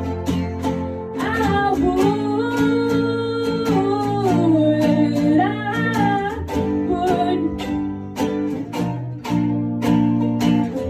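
Acoustic guitar strummed in a steady rhythm. A voice sings a held, wavering melody over it from about a second in, dropping out a little past halfway, while the strumming carries on.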